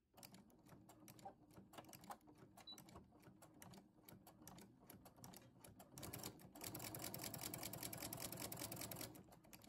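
Baby Lock sewing machine stitching through pinned cotton fabric, faint: a few scattered slow clicks at first, then from about six seconds in a steady run of rapid stitching that stops just before the end.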